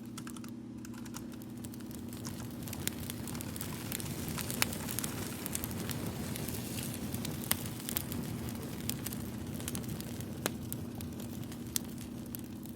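Wood fire crackling, with scattered sharp pops over a steady low hum.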